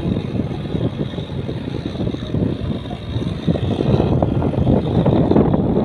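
Tractor engine running under load as the tractor pushes its front blade through flooded paddy mud, getting louder about four seconds in as it comes closer.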